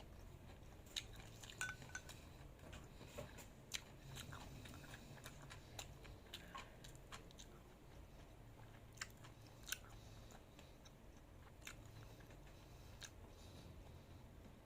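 A person chewing food close to the microphone, with irregular small crisp crunches and wet clicks of the mouth, a few of them louder.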